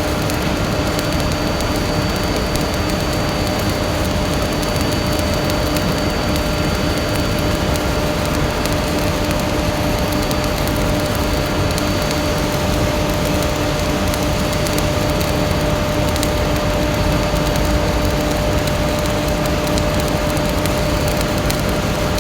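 Stick-welding arc crackling and sputtering steadily as a weld is run on a pipe, over a steady electrical hum.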